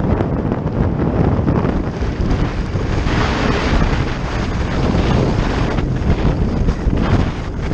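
Loud, steady wind buffeting on a camera microphone carried on a moving off-road motorcycle, growing hissier about three seconds in.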